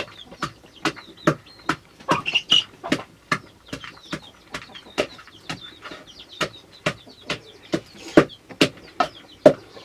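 Steady, even knocks of food being cut or pounded by hand in a wooden or metal vessel, about two to three strokes a second. A chicken clucks briefly about two seconds in.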